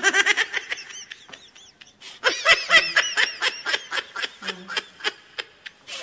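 A young man laughing hard in quick repeated bursts: a short bout at the start, then a longer one from about two seconds in.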